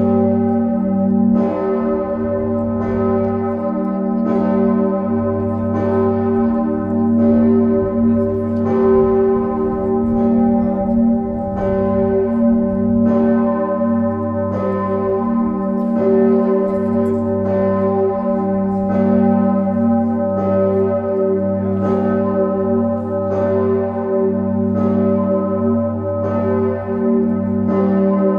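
The 'Osanna' bell of Leipzig's Nikolaikirche, tuned to G below middle C, swinging and ringing on its own. Its clapper strikes about every one and a half seconds, and a deep hum carries on under each stroke.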